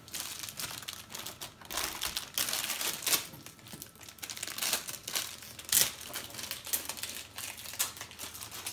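Plastic toy packaging being crinkled and torn open by hand, in irregular crackles, the sharpest about six seconds in.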